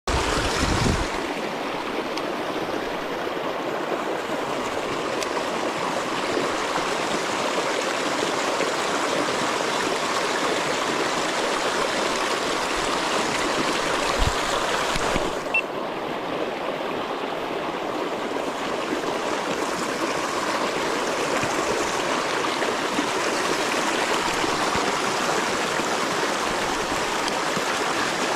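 River water rushing steadily over rocks, with a couple of brief low thumps near the start and about halfway through.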